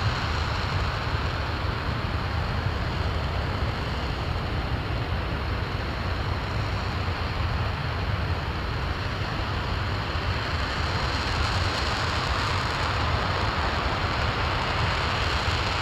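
RS-25 liquid-hydrogen/liquid-oxygen rocket engine firing steadily during a long-duration hot-fire test: a constant, unbroken rushing noise over a deep rumble.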